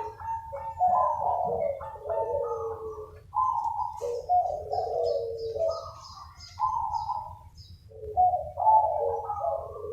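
Several zebra doves cooing, their rolling coo phrases overlapping as the birds answer one another, with a short lull about eight seconds in. A smaller bird chirps rapidly and high-pitched from about four to seven seconds in.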